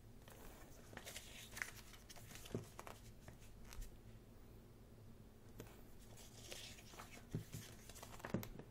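Pages of a thick paper photobook being turned: faint paper rustles and light taps, with a few sharper page flicks.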